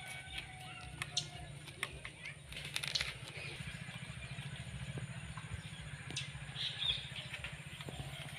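Hand mixing wood apple pulp with spices in a stainless steel bowl: a few small clicks against the steel, over a steady low pulsing hum.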